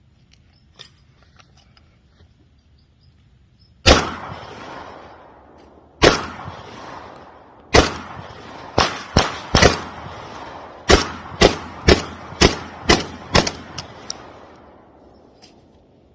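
A string of about a dozen pistol shots, each with a ringing echo tail. The first three come about two seconds apart, starting about four seconds in, then quicker groups of shots follow. The echo dies away after the last shot near the end.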